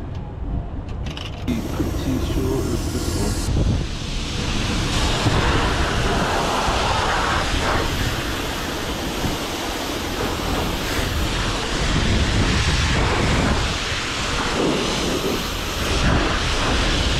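Self-serve car wash high-pressure spray wand spraying water onto a car, a steady rushing hiss that starts about a second and a half in and grows fuller a couple of seconds later. A few clicks come just before the spray starts.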